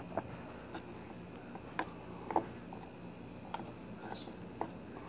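A metal spoon clinking and scraping against the inside of a stainless steel camp cook pot as rice is stirred: about half a dozen light, separate taps a second or so apart.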